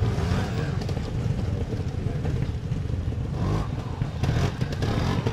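Trials motorcycle engine running and revving as the bike climbs a rock step, rising in pitch a couple of times about three to four and a half seconds in.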